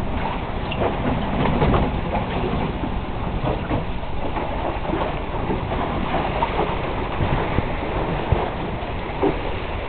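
Water rushing and splashing along the hull of an Icéo 6.90 sailboat under way in a choppy sea, mixed with a low wind rumble on the microphone. Occasional sharp knocks from the boat stand out, the loudest about eight seconds in.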